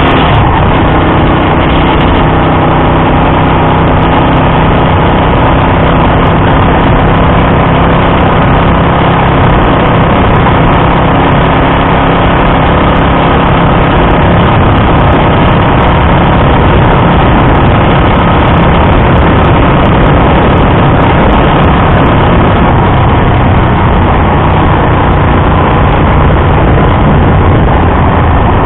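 Honda Dream CL250's air-cooled parallel-twin engine running steadily at cruising speed on the road. A heavy, even rush of wind noise over the microphone largely covers it.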